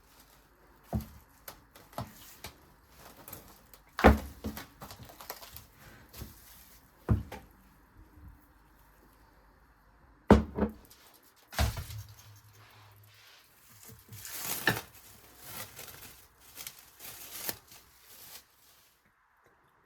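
Kitchen handling sounds: scattered knocks and clicks of objects being picked up and set down. A few heavier thunks stand out, the loudest about four seconds in and two more between ten and twelve seconds in.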